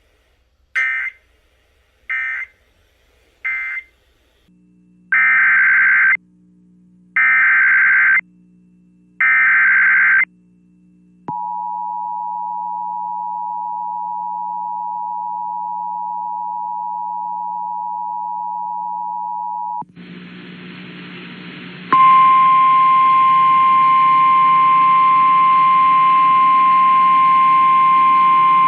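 Emergency Alert System alert sequence: three short SAME data bursts, then three longer SAME header bursts of warbling data, followed by the two-tone EAS attention signal held for about eight seconds. After a short stretch of static, the steady single-pitch NOAA Weather Radio warning alarm tone starts about 22 seconds in and keeps sounding over hiss.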